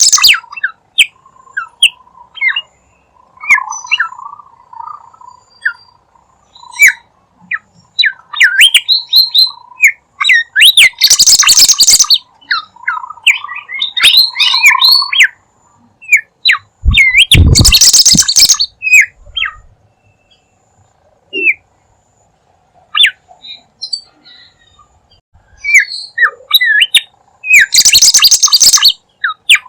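Bird lure recording of a bimoli bird calling: quick chirps and short sweeping whistled notes, broken four times by loud, harsh squawking bursts.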